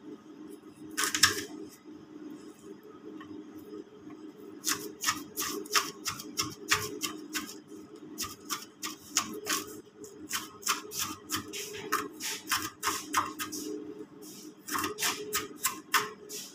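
Kitchen knife chopping onion on a cutting board: quick repeated knocks, about three a second, pausing for a moment a little after halfway and starting again near the end.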